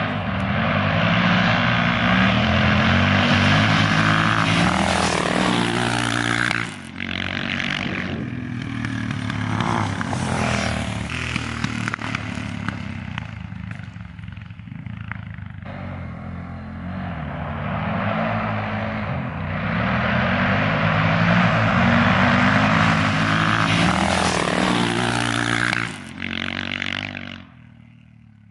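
Motorcycle engines revving hard as the bikes launch and accelerate down a drag strip, pitch climbing and dropping back at each gear change. There are two loud spells, one at the start and one in the second half, with quieter running between.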